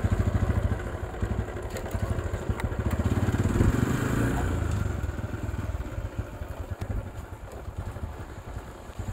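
Motorcycle engine running with a steady low exhaust beat, a little quieter after about five seconds.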